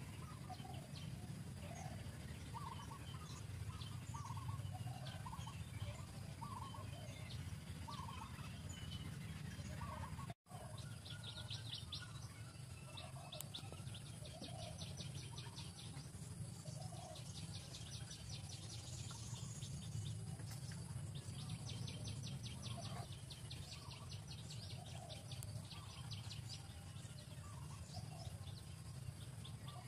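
Birds calling: short calls repeated about once a second, and from a little after ten seconds in, spells of fast high trilling, over a steady low rumble. The sound cuts out for an instant about ten seconds in.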